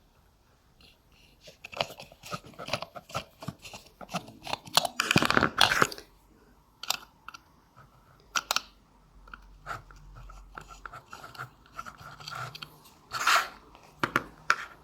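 Hands-on repair noise: tools and plastic and wiring parts of an electric scooter being handled, giving irregular clicks, rattles and crunches. There is a denser, louder run about five seconds in and a sharp crunch near the end.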